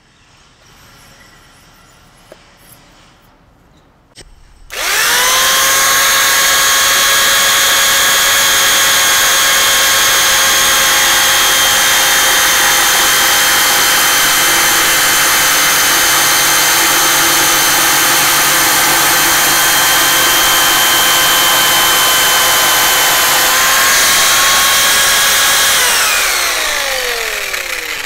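Parkside PSTK 800 C3 800 W jigsaw starting about five seconds in and cutting wood with a loud, steady motor whine. Near the end it is switched off and the whine falls in pitch as the motor winds down.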